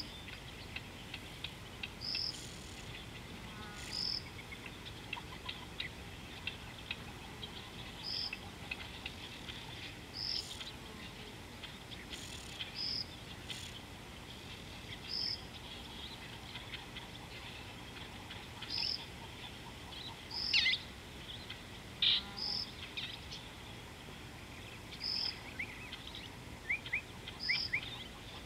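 Insects and birds calling: a short high note repeats every two to three seconds over a busy chatter of faint chirps and ticks. Two louder bird calls sweep downward about two-thirds of the way through.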